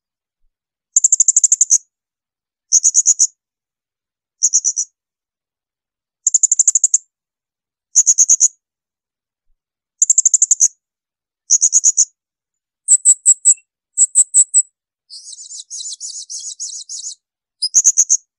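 Blue-crowned hanging parrot (serindit) giving shrill 'tembakan' call bursts: short runs of rapid, high-pitched notes, repeated every second or two. Near the end comes a quieter, harsher rattling stretch about two seconds long before one more burst.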